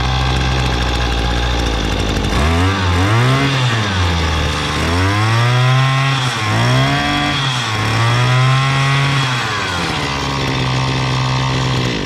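Used Japanese brush cutter's small two-stroke engine being test-run. It idles steadily, then is revved up and down several times from about two seconds in, and settles back to idle near the end.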